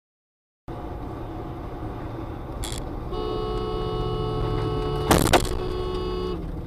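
Steady car engine and road noise heard from inside the car. A two-tone car horn is held for about three seconds, with a sharp loud bang in the middle of it.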